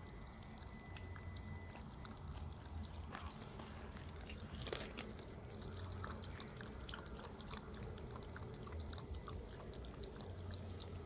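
Red fox cub feeding from a small plastic dish: faint, irregular chewing and crunching clicks over a low steady rumble.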